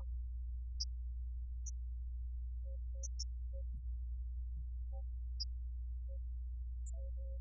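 A steady low hum with a few faint, short blips scattered over it, high and mid-pitched, and no clear music.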